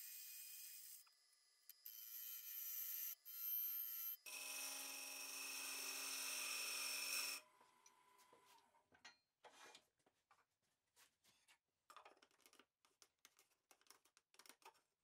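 Gouge cutting into the spinning wood of a bowl on a wood lathe, a hissing shaving sound in short stretches and then one steadier, louder cut lasting about three seconds. About halfway through the cutting stops and only light taps and clicks follow as a ruler and hands touch the wood.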